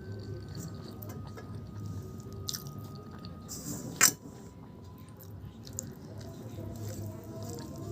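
A person chewing food, with one sharp click about four seconds in.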